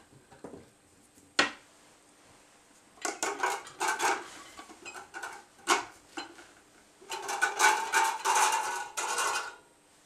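Metal parts of a thermomechanical generator's top assembly clinking and scraping as they are worked loose by hand and lifted off. There is a single sharp click about a second and a half in, then two spells of rattling and scraping, the second and longer one near the end.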